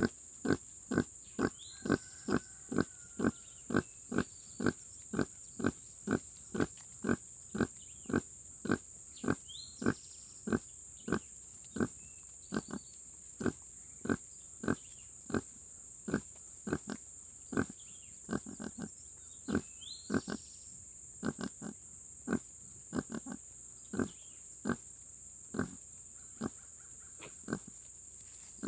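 Nursing sow grunting in a steady rhythm, about two short low grunts a second, the rhythmic nursing call that goes with milk let-down. The grunts become more irregular and spaced out in the second half, with some coming in pairs.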